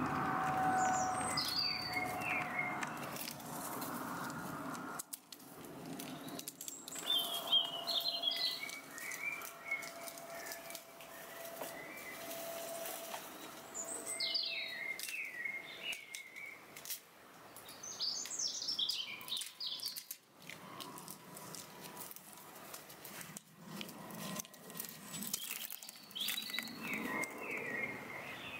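A songbird singing short chirpy phrases every few seconds, each phrase falling in pitch. A low background hum and noise are heard under the first few seconds.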